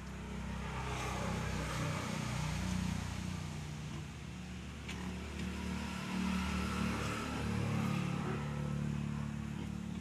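A motor vehicle engine running, growing louder and softer in two swells.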